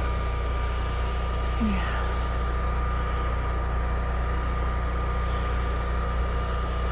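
A home standby generator's engine running steadily with a constant low drone and a faint steady whine.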